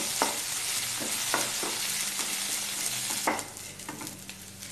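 Sliced shallots, garlic and coriander leaves sizzling in hot oil in an aluminium kadai while being stirred with a wooden spatula, with a few sharp scrapes and knocks of the spatula against the pan. The sizzle grows quieter about three seconds in.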